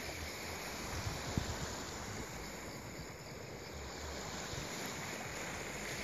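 Steady wash of sea surf with light wind on the microphone, and a single soft knock about a second and a half in.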